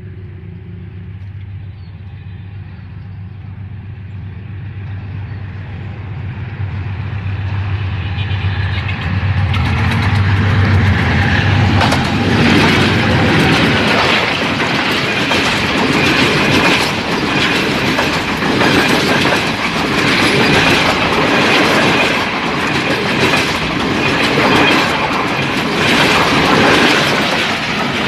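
Pakistan Railways express passenger train: the diesel locomotive's low engine hum grows louder as it approaches. About ten seconds in, the passenger coaches pass close by with a loud steady rush and a regular clickety-clack of wheels over rail joints.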